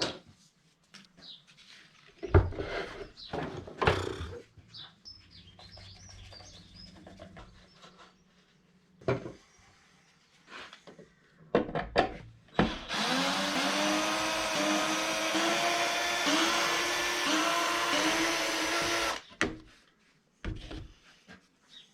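Knocks and clicks of parts being handled, then about 13 seconds in a lathe's electric motor switches on, rises briefly in pitch as it spins up, runs steadily for about six seconds and stops. It is the original motor being tried in place of a noisier one.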